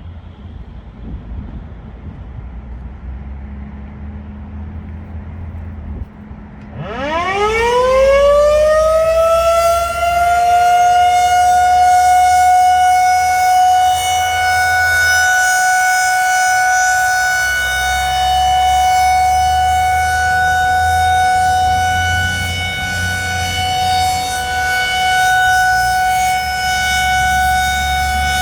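Federal Signal 2001-SRNB electromechanical outdoor warning siren winding up from a standstill about seven seconds in. Its pitch rises quickly, then it holds a loud, steady wail. Before it starts there is only a low rumble.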